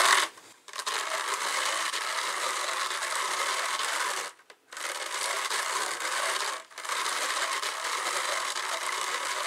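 Wooden drum carder's drums being turned by hand as wool fibre is fed onto the carding cloth: a steady, noisy whir that breaks off briefly three times, near the start, about halfway and about two-thirds through.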